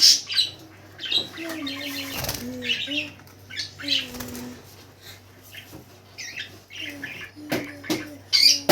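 Small birds chirping in quick, high-pitched bursts, with several sudden flurries of wings fluttering; the loudest flutters come right at the start and near the end.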